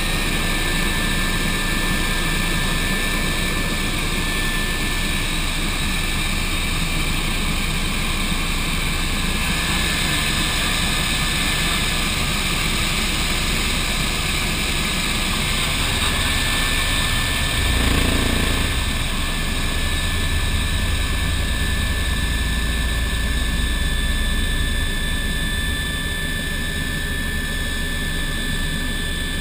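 Bo 105 twin-turbine helicopter in flight, heard from inside the cabin: a steady turbine whine over rotor and air noise. A brief low surge of noise comes about eighteen seconds in.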